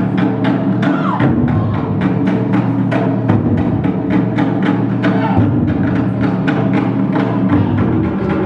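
Loud dance music dominated by deep drums, striking a fast, even beat of about four hits a second over sustained low notes, with a brief falling tone about a second in.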